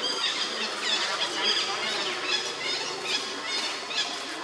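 Baby monkey squealing: a rapid string of short, high-pitched squeals.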